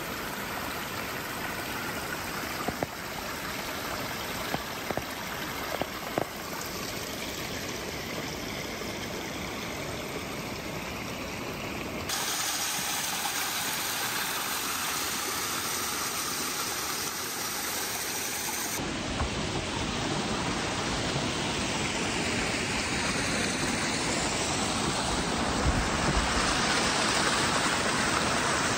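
Small mountain forest stream running and splashing down over rocks and moss, a steady rush of water. The sound shifts abruptly twice to other small cascades, the last one louder.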